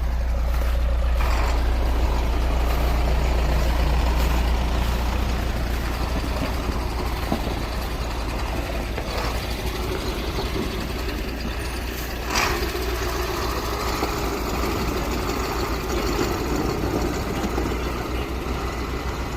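Crane truck's engine running steadily with a deep low hum, with a short sharp sound about twelve seconds in.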